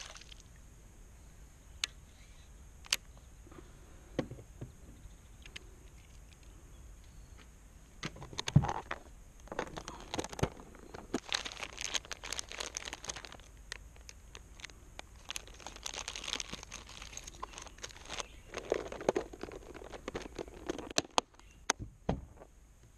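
Plastic lure bags and a plastic tackle box being handled: a few sharp clicks, then from about eight seconds in, bursts of crinkling and rustling.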